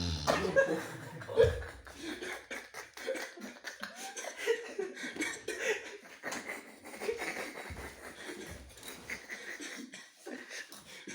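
A man snoring, one low buzzing snore that ends about a second and a half in, followed by soft giggling and stifled laughter from onlookers.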